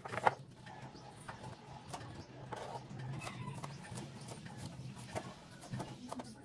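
Chef's knife cutting through yardlong beans and tapping on a plastic cutting board: a string of irregular light taps, the sharpest about a quarter second in. A low steady hum underneath.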